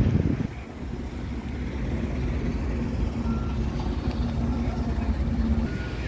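Road traffic: cars idling and moving slowly in a queued pick-up lane, a low steady rumble with an engine hum. A few short, high beeps sound in the second half.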